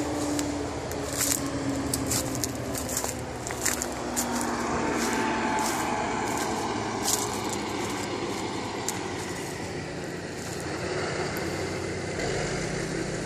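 Footsteps crunching on gravel ballast and dry grass, with a steady engine hum in the background whose pitch sinks slightly over the first few seconds.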